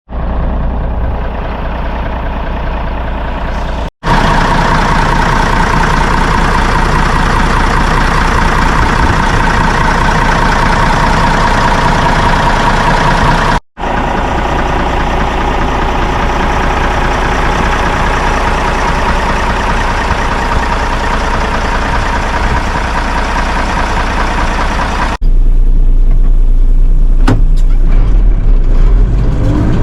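Fiatagri 90-series tractor's diesel engine running steadily as it drives on the road, with a steady whine over the engine note. The sound is broken by short cuts twice. The last few seconds are louder and deeper.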